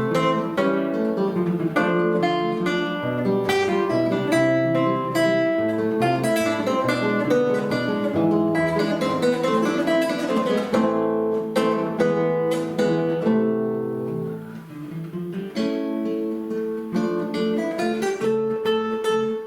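A duet of two acoustic guitars playing a melodic piece, plucked notes over a bass line, easing off briefly around two thirds of the way through before continuing.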